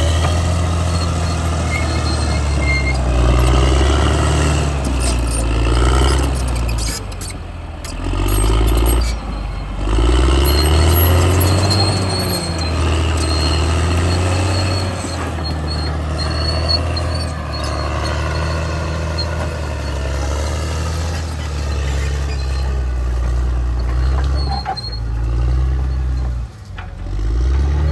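Caterpillar D6R bulldozer's diesel engine working under varying load. Its pitch rises and falls every few seconds, with brief drops in level about eight seconds in and again near the end.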